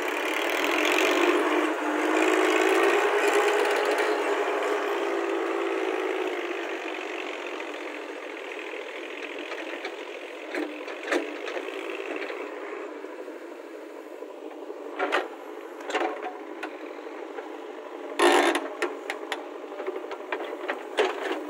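Massey Ferguson tractor's diesel engine pulling a trolley loaded with soil, loud and laboring for the first few seconds, then fading as it moves off. From about ten seconds in, a backhoe digging soil gives scattered metallic knocks and clanks, the loudest about eighteen seconds in.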